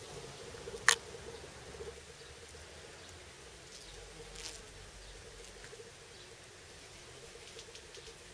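Bumblebees buzzing at passionflowers, the hum wavering and coming and going, with a single sharp click about a second in.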